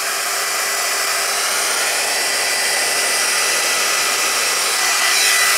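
GHD Duet Style hot-air straightener running, its fan blowing a steady rush of air with a thin, steady high whine, as it dries and straightens a section of hair at the same time.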